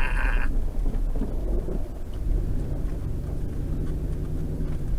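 Low rumble of a vehicle running, with a steady engine drone coming in about halfway through.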